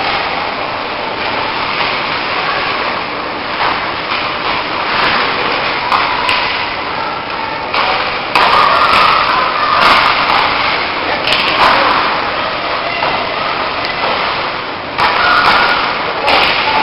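Ice hockey play on a rink: skates scraping and carving the ice and sticks working the puck, a steady scraping noise with several sudden louder moments in the second half.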